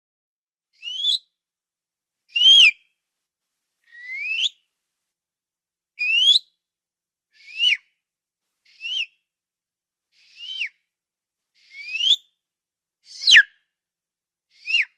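Quail calling: a series of ten short whistled calls, most rising in pitch and some dropping away at the end, repeated about every one and a half seconds.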